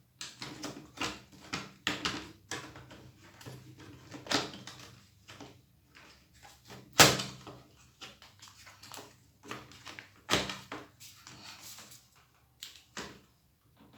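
Irregular clicks and knocks of plastic laptop parts being handled and pressed into place as the battery is fitted back into an Asus X541C, with a sharp knock about seven seconds in.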